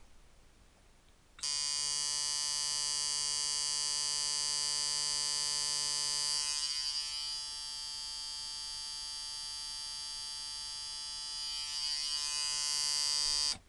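Coil tattoo machine on a Mickey Sharpz T-Dial frame, set up as a liner, running at 5.5 volts for a harder hit: a steady electric buzz that starts about a second and a half in. It drops in level around the middle, comes up again near the end, and stops suddenly.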